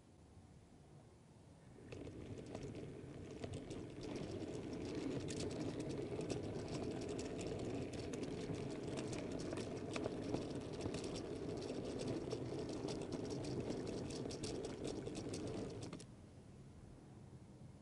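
Model railway goods train rolling along the track, heard from a camera riding on its guards van: a steady hum with rapid, irregular clicking of wheels over the rails. It starts about two seconds in, grows louder, and cuts off suddenly near the end as the train stops.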